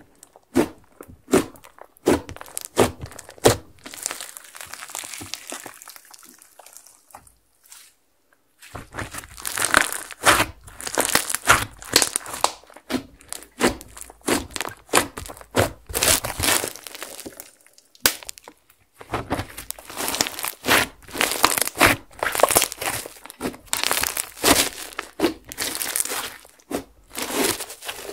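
Hands kneading, pressing and stretching a beaded slime, giving rapid crackling and crunching pops as the beads and trapped air are squeezed. Short breaks about eight seconds in and again around eighteen seconds.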